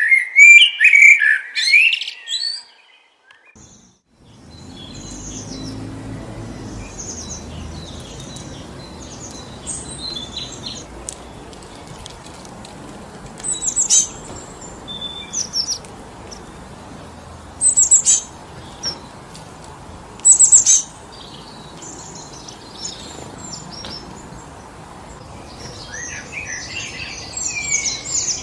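Small birds chirping and calling over steady wind in the trees. A loud burst of bird chatter opens, breaks off into a brief hush, and then the wind comes in after about four seconds, with scattered high chirps, three sharp loud ones, and more chatter near the end.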